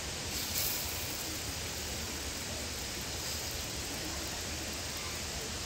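Egg-dipped bread frying in hot oil in a pan on a portable gas stove: a brief louder sizzle about half a second in as the slice goes in, then a steady hiss.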